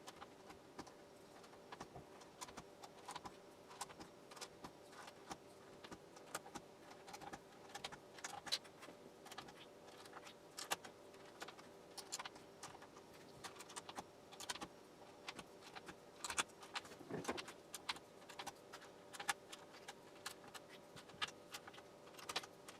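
Corsair K70 mechanical keyboard keys with red linear switches being pressed one after another, giving faint irregular clicks as the keycaps bottom out. Each key is being tested to see that it still registers after the board was cleaned of liquid damage.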